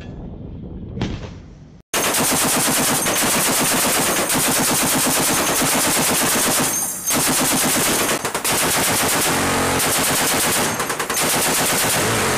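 Ship-mounted heavy machine gun firing long, rapid bursts of automatic fire. The firing starts suddenly about two seconds in and goes on almost without a break, with a few brief pauses.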